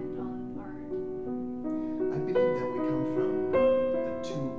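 Piano music playing a slow melody of held notes that change about every half second.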